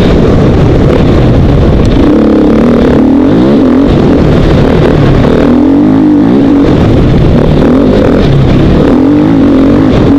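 2012 KTM 450 XC-W's single-cylinder four-stroke engine under hard riding, loud, its pitch climbing and dropping back again and again as the rider works the throttle.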